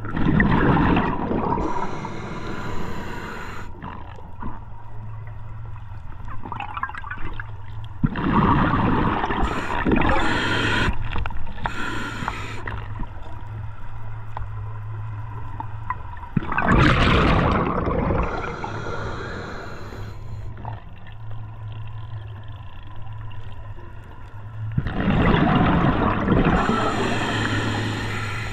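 Scuba diver's open-circuit regulator breathing, heard underwater: four loud gurgling rushes of exhaled bubbles, roughly every eight seconds, with quieter breathing between them. A steady low hum runs underneath.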